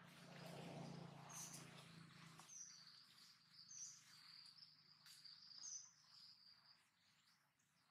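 Faint woodland ambience: a handful of short, high bird chirps and a steady high insect buzz, over a low hum that fades out after the first couple of seconds.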